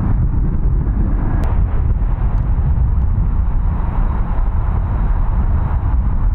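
Boeing 737 airliner's jet engines running as it rolls out on the runway after landing: a loud, steady, deep rumble.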